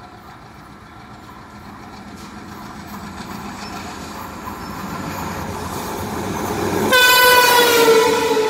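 ALCO WDM-3A diesel locomotive hauling an express train, its engine and wheels growing steadily louder as it approaches. About seven seconds in the horn blasts loud and sustained, dropping slightly in pitch as the locomotive passes close by.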